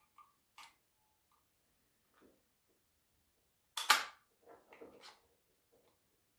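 Plastic clicks from a Husqvarna brushcutter throttle control handle being worked by hand, its trigger and lock button pressed and released. About four seconds in comes a sharp double snap as the spring-loaded trigger returns, followed by a few lighter clicks; the trigger's return spring is working again.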